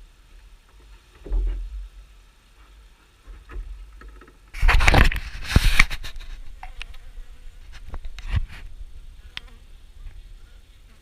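Honeybees buzzing around an open hive, with scattered knocks and clicks. A loud rushing, rustling noise lasts about a second and a half, starting about four and a half seconds in.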